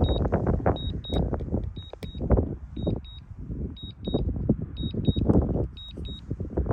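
Drone controller giving high double beeps about once a second, the alert it sounds while the drone is returning home, over loud wind buffeting the microphone.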